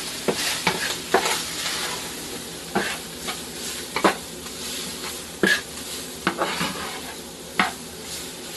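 Ground beef sizzling in a frying pan while a spatula stirs and pushes it around, with irregular scraping ticks of the spatula against the pan.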